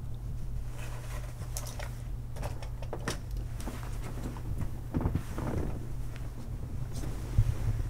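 Light clicks and rattles of photo slides handled in a tray, then bedding rustling as someone shifts in bed, with a brief knock near the end, over a steady low hum.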